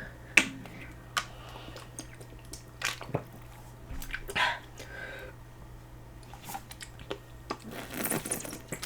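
Scattered sharp clicks and small handling noises, with a short cluster of louder rustling about four and a half seconds in and again near the end.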